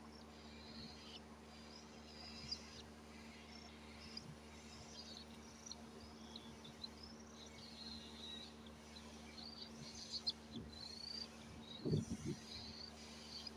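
Pet cockatiels chirping softly, short high chirps on and off over a steady low hum, with a few low knocks about ten to twelve seconds in.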